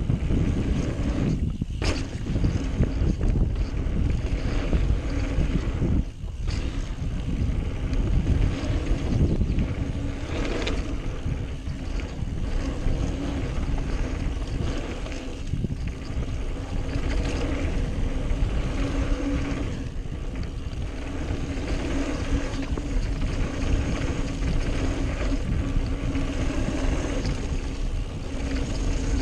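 Wind buffeting an action camera's microphone as a mountain bike rolls fast down a dirt singletrack, with tyre noise on dirt and occasional knocks from the bike over bumps.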